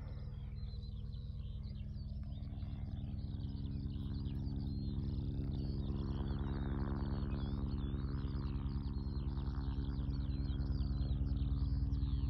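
Small birds chirping and twittering over a steady low drone that slowly grows louder.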